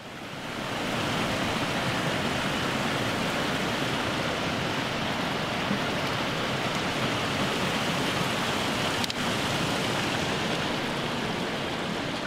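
Rushing mountain creek: a steady wash of flowing water that swells up over the first second and then holds.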